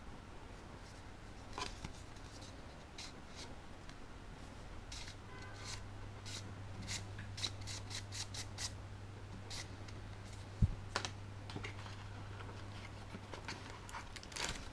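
Packaging and a desktop USB charger being handled during an unboxing: a scattering of light clicks and scrapes, with one sharp knock about ten and a half seconds in, over a steady low hum.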